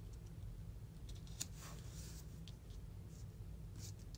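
Hands pressing and smoothing a glued strip of patterned paper onto cardstock: a few brief paper rustles, with a sharp tap about a second and a half in.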